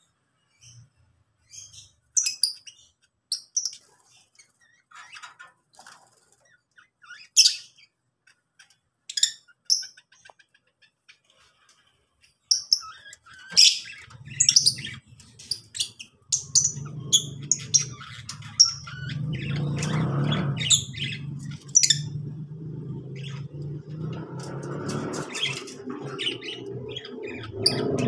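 Lovebirds chirping and squawking in short, sharp high calls. About halfway through, a steady low rumble starts underneath and keeps going to the end.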